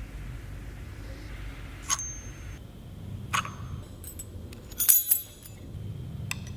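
Metal parts of a Lomography Daguerreotype Achromat 64mm f/2.9 lens being handled: sharp single clicks about two and three and a half seconds in, then a short cluster of ringing metallic clinks about five seconds in, the loudest moment, and one more click near the end.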